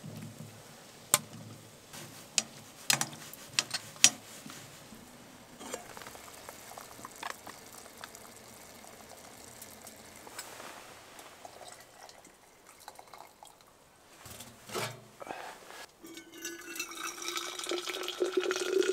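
A few sharp clicks in the first four seconds as chopped vegetables are tipped from a cutting board into a frying pan. From about three seconds before the end, just-boiled water is poured from an aluminium kettle into a steel vacuum flask, its pitch rising as the flask fills.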